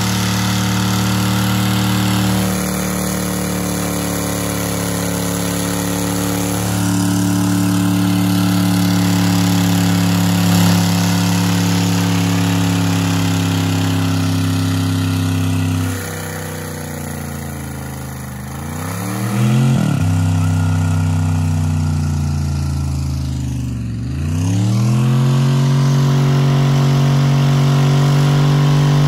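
Dodge Dakota's V8 held at high revs during a burnout, rear tyres spinning in place. Twice the revs sag and then climb straight back up, about two-thirds of the way through and again a few seconds later.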